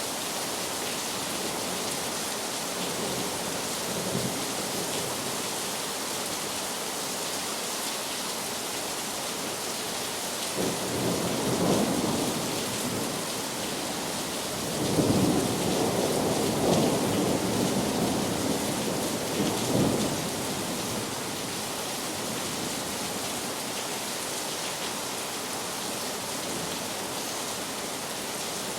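Heavy rain falling steadily as an even hiss, with distant thunder rumbling twice: a short roll about a third of the way in and a longer, louder one a few seconds later.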